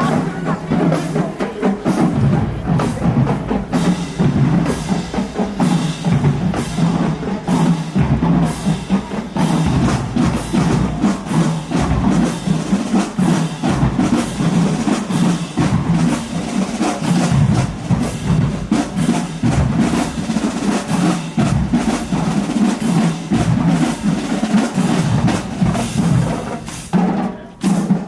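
Marching band drumline playing a cadence: steady snare, tenor and bass drum strikes with sharp rim or stick clicks, dipping briefly near the end.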